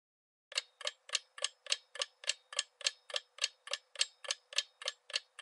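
Clock-ticking countdown timer sound effect: sharp, even ticks at about three and a half a second, starting about half a second in.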